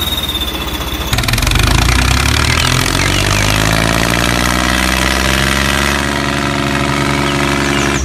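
Diesel tractor engine running steadily, its sound changing abruptly about a second in and its note shifting slowly in pitch through the middle. A thin high whistle sounds over it during the first second.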